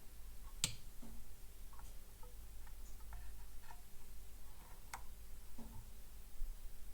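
Light clicks and taps from handling a circuit board on a workbench. There are two sharper clicks, about a second in and near five seconds, and fainter ticks between them, over a low steady hum.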